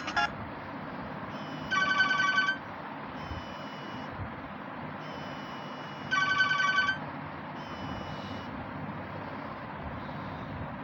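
Nokia mobile phone playing a telephone-ring style ringtone: two short warbling trills about four seconds apart, with fainter beeping tones between them.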